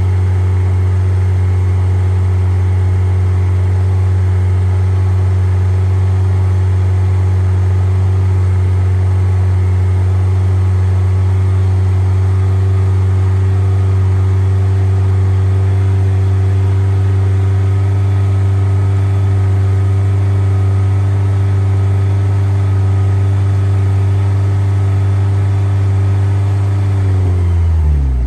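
1990 Mazda Miata's 1.6-litre four-cylinder engine running at a steady, held speed during an Italian tune-up to burn out carbon deposits; just before the end its pitch falls away as the revs drop.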